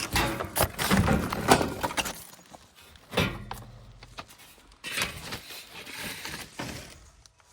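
Knocks, clatter and rattles of hands working at a gas furnace cabinet, busy in the first two seconds, with a sharp knock about three seconds in and a longer scrape and rustle near the end.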